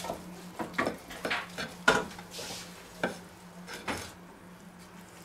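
A long kitchen knife slicing through a crusty rolled pork roast held with a carving fork on a wooden cutting board: a series of short scrapes and knocks of metal on wood and meat, the sharpest about two seconds in, stopping a little after four seconds.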